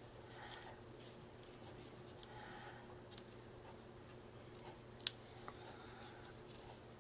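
Faint rustling and light taps of paper as a small paper butterfly cutout is slid into place on a paper tag, with one sharp click about five seconds in, over a steady low hum.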